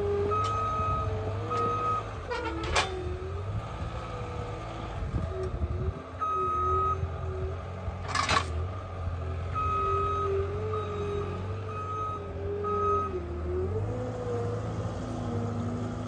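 CAT 226D3 skid steer's diesel engine running, its pitch rising and falling as it works, while its backup alarm sounds in short beeps of a steady high tone. Two brief sharp noises stand out, about three and eight seconds in.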